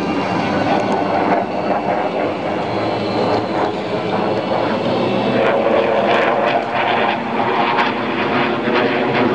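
SAAB JAS-39 Gripen fighter's single Volvo RM12 turbofan jet engine, a continuous loud jet roar as the aircraft flies its display. The roar turns rougher, with crackles, from about halfway through.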